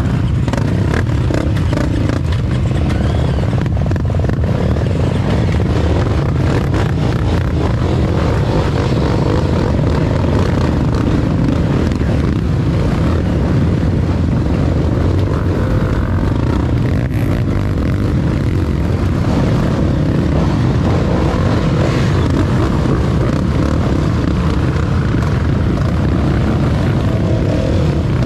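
Off-road motorcycle engine noise, loud, steady and unbroken.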